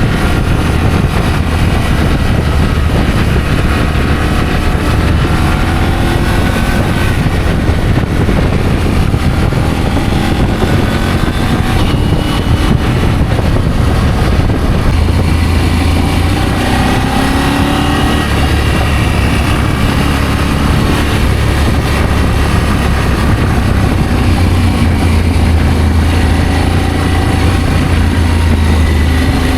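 Adventure motorcycle engine running while riding, its pitch slowly rising and falling with the throttle, under a heavy steady rush of wind on the microphone.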